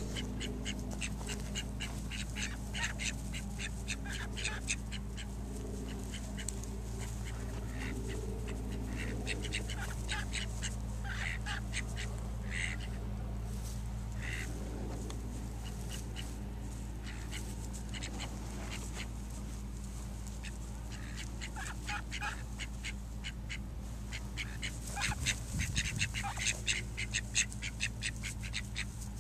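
Call ducks quacking in rapid runs of short, high-pitched calls, loudest and busiest near the end.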